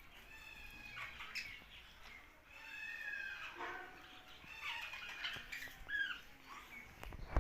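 Budgerigars chattering: a run of short chirps and warbled, squawky calls, one after another.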